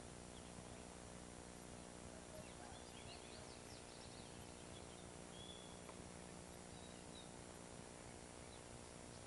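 Faint outdoor ambience: a few scattered bird chirps and short whistles over a steady low hiss and hum.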